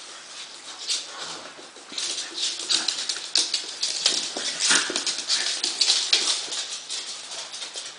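Two puppies play-fighting on a wooden floor: a busy run of clicks and scrabbling from claws and paws, with small dog noises, busiest from about two seconds in until near the end.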